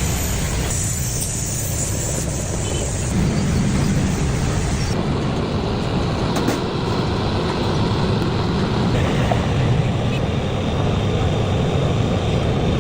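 Steady road traffic noise, its character shifting abruptly a few times.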